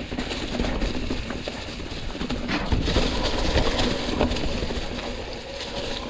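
Mountain bike rolling down a leaf-covered trail. The tyres crunch through dry leaves, and the bike knocks and rattles over rocks and roots, over a continuous low rumble.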